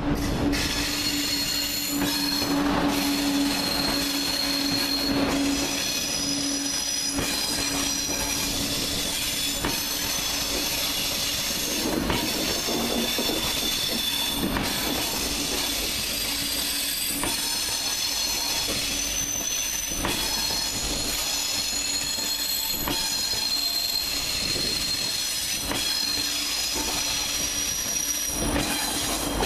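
TGV high-speed train rolling slowly past over the tracks and points, its wheels squealing in several high, steady tones. A low steady hum runs underneath, with occasional clacks from the wheels over rail joints.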